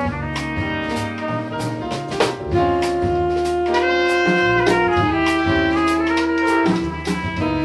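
Live jazz quintet: trumpet and alto saxophone play the melody together, holding long notes through the middle, over piano, double bass and a drum kit keeping a steady cymbal beat.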